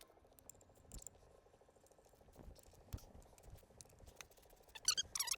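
Faint clicks and metal rattles of a wrench working the bolts on a mini excavator's underside cover, with a short burst of high squeaks near the end.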